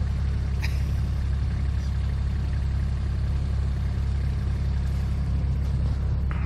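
A steady low rumble with a faint click under a second in.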